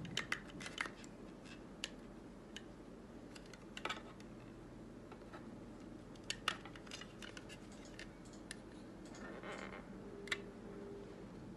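Scattered light clicks and taps of the clear plastic cover of a KitchenAid 5KFC3516 food chopper being handled and turned over in the hands.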